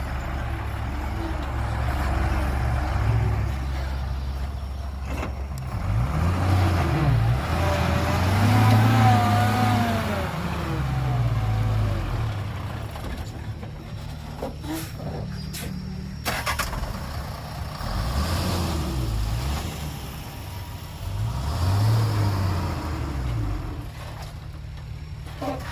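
Heavy diesel vehicle engine revving up and down in repeated surges, with a few sharp knocks.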